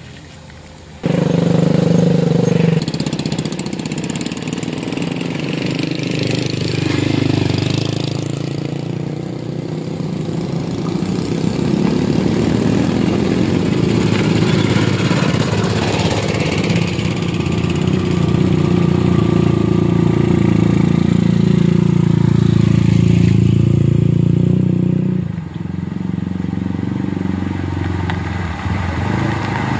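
Engines of road vehicles running close by, with a motor scooter passing near about halfway through. The engine sound starts suddenly about a second in, stays steady and loud, and drops away near the end.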